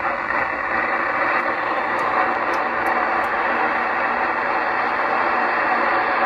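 Steady hiss of receiver static from a Kenwood 2-metre all-mode transceiver's speaker, tuned near the ISS voice downlink with no voice coming through.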